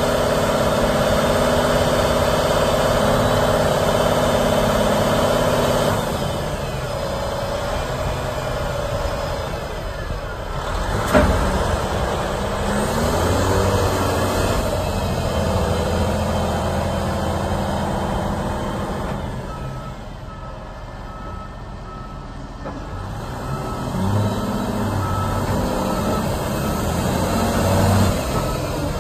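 Volvo A40F articulated dump truck's diesel engine running, at high revs for about the first six seconds and then at a lower, changing speed, with one sharp knock about eleven seconds in. In the last third a backup alarm beeps repeatedly.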